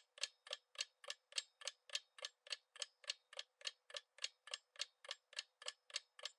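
Countdown timer sound effect: a faint clock tick repeating evenly, about three and a half ticks a second.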